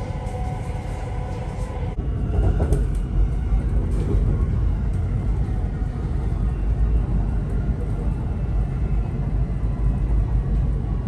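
Metro train running, heard from inside the car: a steady low rumble of wheels and running gear on the rails. About two seconds in, the sound changes abruptly from a few steady tones over the rumble to a louder, even rumble.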